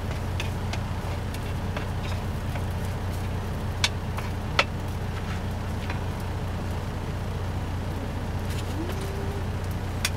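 Steady low hum of a semi truck's idling diesel engine, heard inside the cab. Two sharp knocks come less than a second apart about four seconds in.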